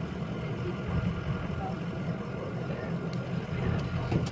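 Shuttle bus engine idling steadily with a low rumble, heard from inside the cab.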